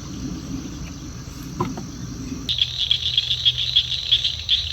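Insects chirping in a fast, even pulse, about five chirps a second, coming in loudly about halfway through over a low background rumble.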